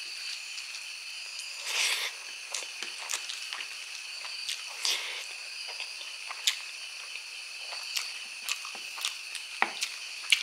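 A bare hand mixing rice with gravy and pulling at a braised pork trotter on a plate: soft wet squishing with small clicks and taps. A steady high hiss runs behind.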